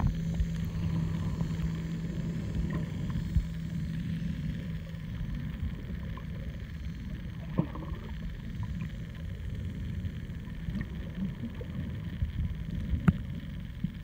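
Muffled underwater rumble of water moving around a camera held below the surface while snorkelling. A steady low hum runs for the first few seconds, and a few sharp clicks or knocks come through, the clearest about halfway and near the end.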